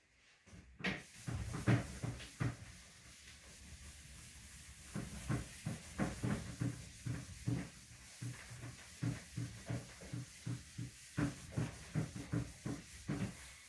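A whiteboard being wiped clean with a duster: short back-and-forth rubbing strokes, a few about a second in, then a quick steady run of about three a second from about five seconds in.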